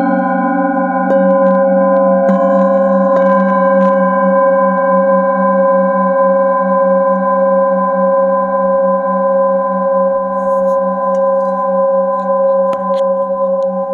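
Metal singing bowls ringing together in long, overlapping sustained tones, the lowest tone pulsing steadily as it rings. A light knock sounds near the end.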